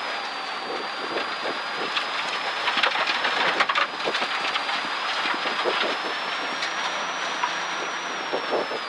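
Rally car on a gravel stage heard from inside the cabin: the engine running with a steady high whine that drifts slowly in pitch, over a noisy wash and a dense run of knocks and rattles.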